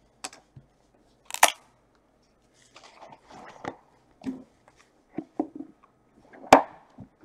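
A sealed sports-card hobby box being opened by hand: the tape seal cut, the cardboard outer box lifted away and a wooden inner box opened. Scattered crinkles, scrapes and light knocks, with a sharp loud crack about a second and a half in and the loudest knock near the end.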